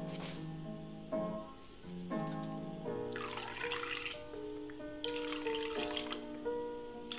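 Background music with a plucked melody over a thin trickle of lemon juice squeezed from a plastic lemon squeeze bottle into a metal bowl of cream. The trickle comes in two short hissing spurts, about three and five seconds in.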